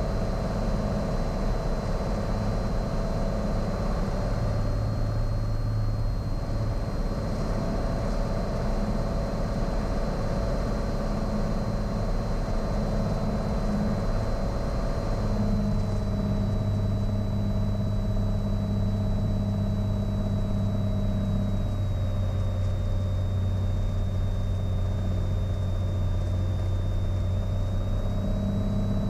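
Single-engine Cessna Skylane piston engine and propeller droning steadily in the cockpit on approach to land. Its pitch dips slightly about halfway through and again later, rising back near the end.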